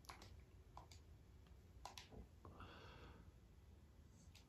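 Near silence with a few faint clicks of PlayStation 3 controller buttons being pressed.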